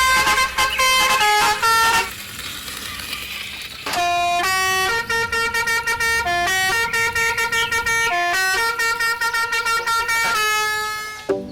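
A loud horn-like tune: a quick run of short notes, a noisy stretch of about two seconds, then long held notes that step up and down in pitch.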